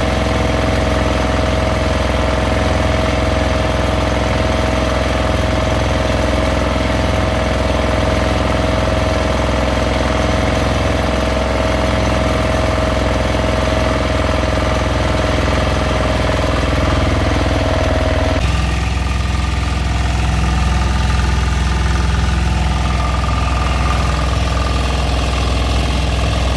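Fishing boat's engine running steadily; its note changes suddenly about two-thirds of the way through.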